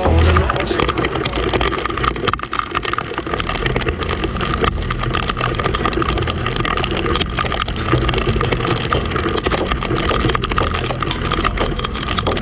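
Next 250 motorcycle engine running steadily under a continuous hiss of wind and road noise.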